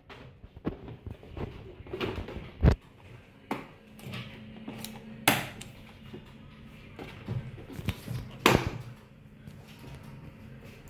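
Back panel of an all-in-one PC being pressed and snapped onto its frame: a handful of sharp, separate clicks and knocks at irregular intervals as the edges seat into place.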